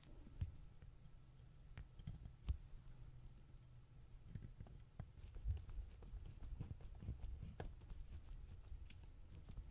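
Faint, scattered clicks and small taps of watchmaker's tools on the small metal parts of a fusee pocket-watch movement, as the movement hinge is fitted onto the main plate.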